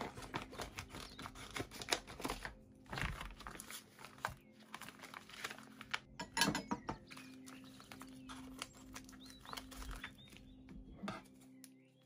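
Plastic food packaging crinkling and crackling in irregular bursts as gloved hands handle a pack of vacuum-sealed salmon fillets, loudest about halfway through.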